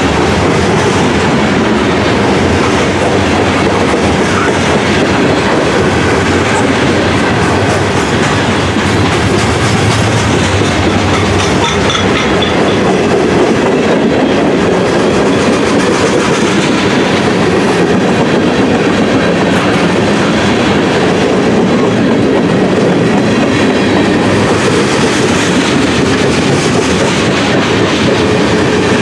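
Freight train cars rolling past: covered hoppers and then tank cars, their steel wheels clattering over the rail joints in a loud, steady rumble and clatter.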